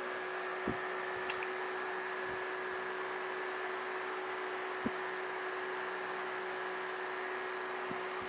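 A 12-inch Galaxy model 2150 oscillating table fan running steadily: an even whoosh of air with a steady motor hum. Three soft short knocks come through it.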